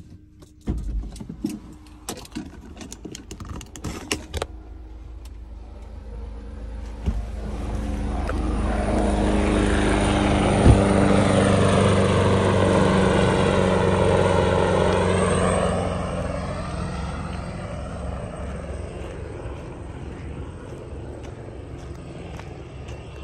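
A vehicle passing by: a rushing noise builds up, is loudest in the middle, then fades away over several seconds. A few sharp clicks and knocks come in the first few seconds.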